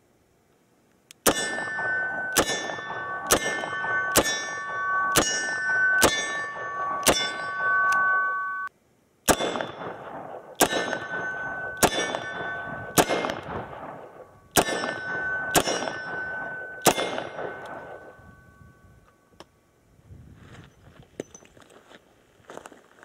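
Smith & Wesson 686 Plus Performance Center seven-shot revolver fired in two strings of seven shots, about one shot a second, a full cylinder each. Hits on the steel silhouette targets ring on after each shot.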